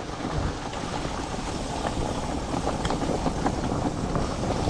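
Dog-pulled four-wheeled cart rolling fast over a dirt forest trail: a steady rumble of tyres on the ground with scattered small knocks and rattles from the frame.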